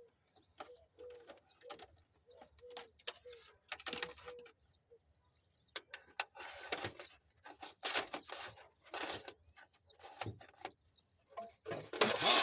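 A dove cooing, a string of short, even low notes over the first few seconds. This is followed by a run of rustling and clattering from hands and tools working on wiring under the truck's hood. The loudest clatter comes near the end.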